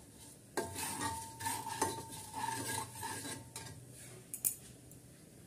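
A steel spatula stirring and scraping sugar in hot oil in the bottom of a pressure cooker, with a few sharp knocks against the pot over a low sizzle, as the sugar is caramelised.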